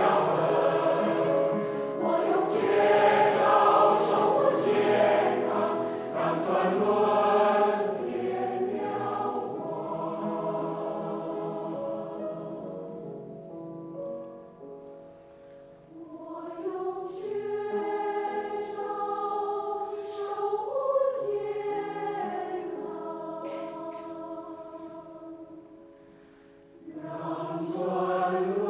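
A choir singing a slow song in harmony with long held notes. The singing fades almost away about halfway through and again shortly before the end, then a full phrase comes back loud.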